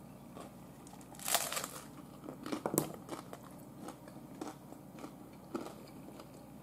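Crunching bites into a hard corn taco shell: one loud crunch about a second in, then a short run of crunchy chews, fading to a few small crunches.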